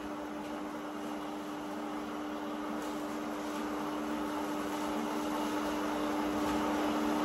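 Countertop blender motor running steadily as it blends a thick pesto, a steady hum that grows slowly louder.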